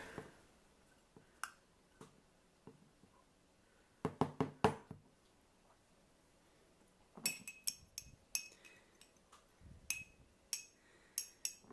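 A few light knocks and a quick cluster of them as a metal measuring cup is tapped on the rim of a glass jar to free packed dark brown sugar. After that, a run of quick ringing clinks of a spoon against the inside of the glass jar as it presses the sugar into a level layer.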